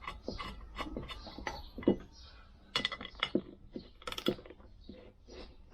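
Small socket tool screwing a new stud into a Lambretta scooter's rear hub: a run of quick, irregular metal clicks and clinks, with a sharper knock about two seconds in.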